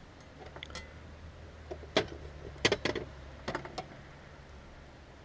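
Handling of a lawn mower's rear wheel plate and hardware: several short, sharp clicks and knocks, the loudest about two seconds in and a cluster around three seconds in, over a faint low hum.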